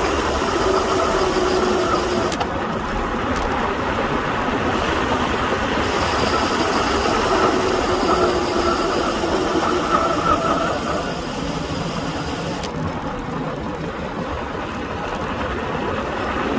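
Wind rushing over the microphone and tyre noise from a road bike riding at speed, with a faint whistling tone that comes and goes.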